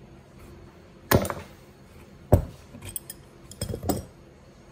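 Sharp metal clanks and clinks of an adjustable wrench against the brass fittings and body of a compressor as the fittings are worked loose, a few knocks about a second apart with a quick cluster near the end.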